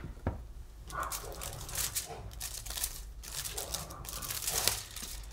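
Aluminium foil crinkling and crackling as a foil-wrapped packet is handled and pressed open, a run of short irregular crackles.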